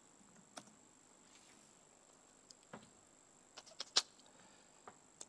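Sparse, faint clicks of laptop keys being pressed, with a louder tap about four seconds in.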